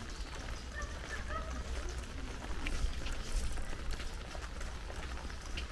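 Walking in light rain: footsteps on a wet dirt path, scattered small taps of raindrops and a few faint bird chirps over a steady low rumble.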